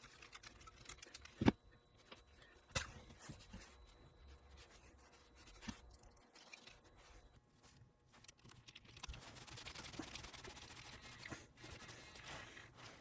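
Hands working on small plastic parts of an RC truck's steering assembly: two sharp knocks a little after the start, a few lighter taps, then steady scraping and rubbing over the last few seconds.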